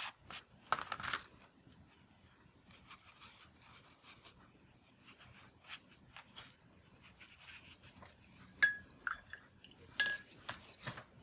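Faint rubbing and light tapping of a paintbrush working on paper, with two short glass clinks near the end.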